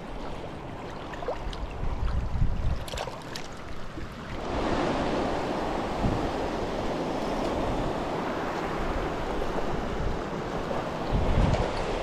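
Shallow river water rushing over rocks in a riffle: a steady hiss that grows louder and fuller about four and a half seconds in. Low rumbles of wind buffeting the microphone come early on and again near the end.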